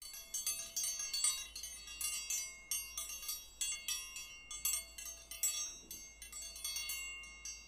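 Wind chimes ringing: many high metallic tones struck irregularly, overlapping and ringing on.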